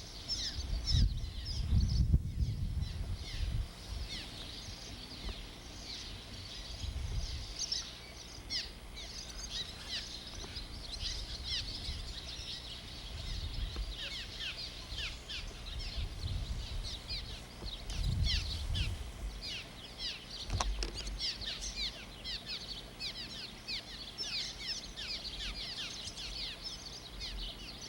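Many small birds chirping, a dense run of short, quick falling chirps that goes on throughout, with a low rumbling noise that comes and goes in bursts.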